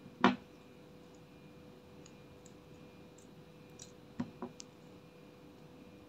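Clear slime pressed and poked by hand in a glass dish, giving one sharp loud click about a quarter second in and two or three softer clicks a little after four seconds in.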